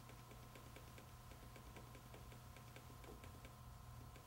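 Faint, even ticking, about four a second, from a Motorola Razr V3 flip phone as its Delete key erases a text field one character at a time. A low steady hum sits underneath.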